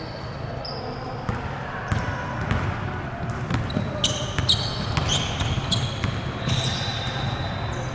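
Sounds of an indoor ball game: a ball bouncing and shoes squeaking on a hard court, with short sharp knocks and voices in the background.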